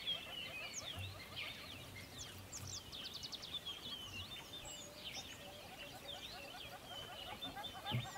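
Many birds chirping together: quick high chirps, rapid trills and short whistled glides overlapping without a break, over a lower layer of repeated short calls. A low thump comes near the end.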